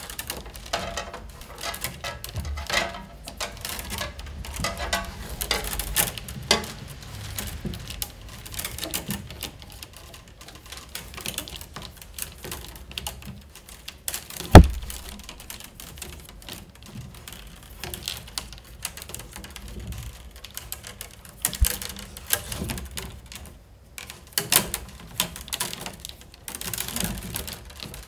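Peeled willow rods rustling and clicking against each other and the upright stakes as a three-rod twisted weave is worked stake by stake around a round wicker tray; the clicks are irregular, with one loud sharp knock about halfway through.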